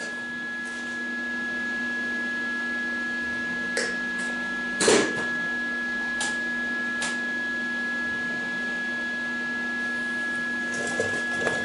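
A steady machine hum, with a few sharp knocks over it, the loudest about five seconds in.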